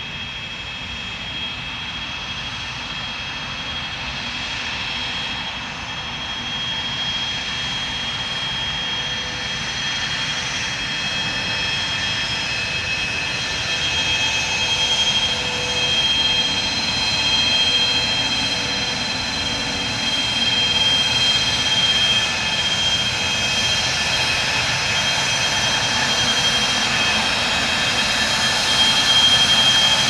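Dassault Falcon 900EX's three Honeywell TFE731 turbofans running at taxi power: a steady jet whine with several high tones, growing gradually louder as the jet comes closer.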